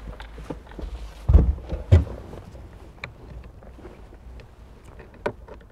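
Handling knocks and clicks from hands and a screwdriver working in under a car dashboard: two dull thumps, then a few short sharp clicks.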